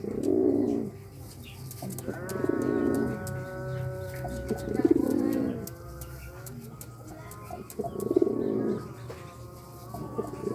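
Domestic pigeon cooing in courtship, four low rolling coos about a second long, spaced two to three seconds apart.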